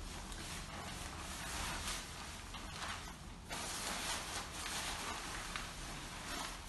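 Rustling and crinkling of a disposable protective gown as it is shaken open and pulled on over the arms, over a low steady hum.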